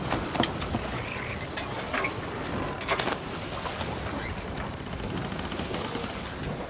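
Sea water lapping and splashing with wind buffeting the microphone, broken by a few short sharp knocks near the start and again around two and three seconds in.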